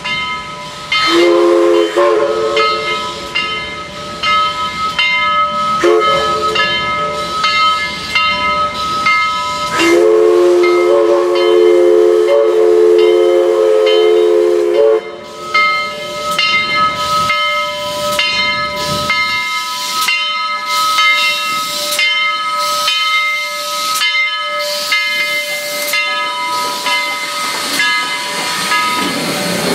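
Southern Railway 4501, a 2-8-2 Mikado steam locomotive, blowing its steam whistle in three blasts over the first fifteen seconds, the last the longest and loudest, while its bell rings steadily, about one strike a second, with steam hissing. Near the end the locomotive draws close and its running gear grows louder as it passes.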